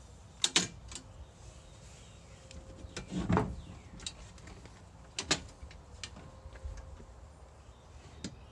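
A collapsible camping shower stall being unfolded and set up: several sharp clicks and knocks, with a longer scraping sound about three seconds in.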